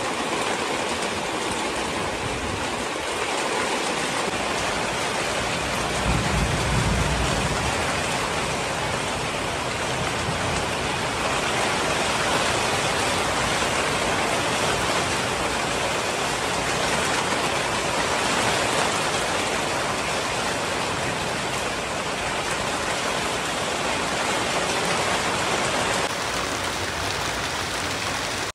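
Steady, dense hiss of heavy rain falling on rooftops. A brief low rumble about six seconds in.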